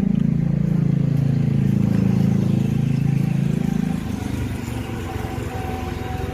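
A motor vehicle's engine running close by, loud and steady for about four seconds, then fading as it moves off.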